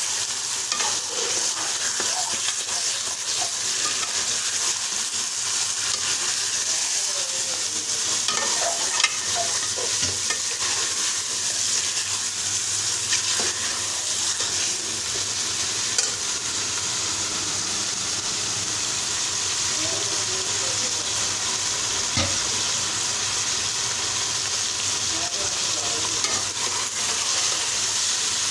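Chicken pieces frying in ginger-garlic paste in a metal pot, a steady sizzle, while a metal spoon stirs and scrapes through them. The spoon knocks sharply against the pot a few times.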